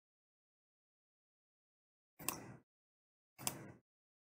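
Two brief computer mouse clicks, about a second apart; otherwise dead silence.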